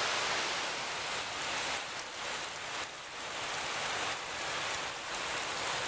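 Fast-flowing woodland stream with white-water cascades: a steady rushing hiss of water.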